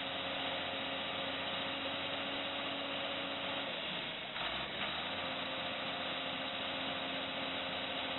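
John Deere four-wheel-drive tractor's diesel engine running at steady revs with its wheels sunk in mud. About four seconds in, the engine note drops away briefly with a knock, then comes back.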